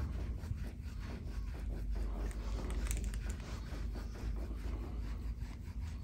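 Massage strokes on a patient's back: irregular soft rubbing and scraping of hands on skin and clothing, with small clicks.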